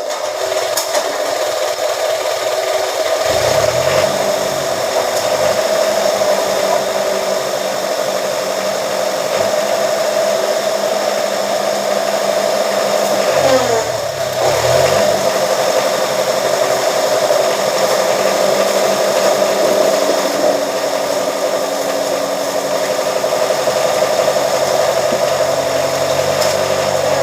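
Press machine's motor running steadily, its pitch dipping and recovering twice: about three seconds in and again about halfway through.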